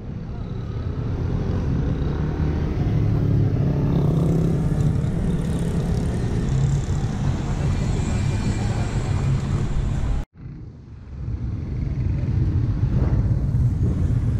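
Diesel engine of a CAIO Millennium IV city bus running as the bus pulls past close by, building up over the first few seconds into a steady deep drone. After a brief dropout about ten seconds in, a second bus of the same type approaches and its engine drone builds again.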